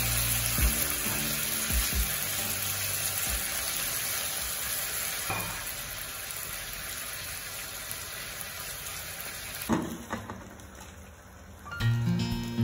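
Whole marinated fish frying in an oiled ceramic-coated wok, sizzling steadily, with a few sharp clicks of metal tongs on the pan. The sizzle stops with a knock about ten seconds in, and light guitar music comes in near the end.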